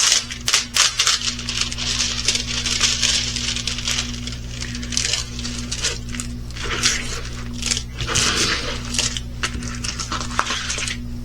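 Irregular rustling and crinkling with scattered small clicks as a sticky diamond painting canvas in its plastic wrapping is handled, over a steady low hum.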